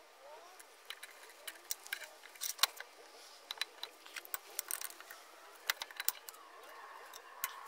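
Light, irregular metallic clinks and scrapes of hand work at a drill press: an M5 tap being set in the chuck and a round aluminium block shifted on the cast-iron table. The sharpest clink comes about two and a half seconds in.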